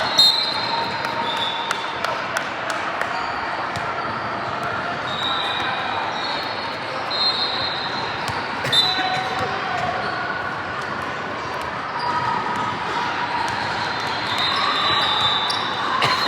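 Basketball game on a gym court: a ball bouncing, with repeated short high-pitched sneaker squeaks on the floor, over indistinct voices from the players and crowd.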